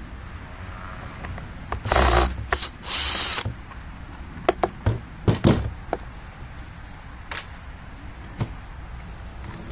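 Power drill/driver spinning in two short bursts, about two and three seconds in, then several sharp clicks and knocks from parts and tools being handled.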